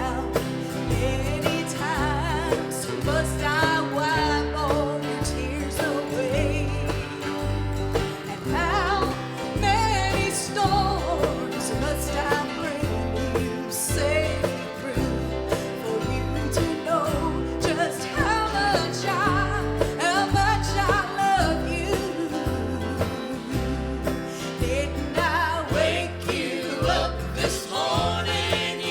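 Gospel song: singing over instrumental accompaniment with a steady, regular bass line.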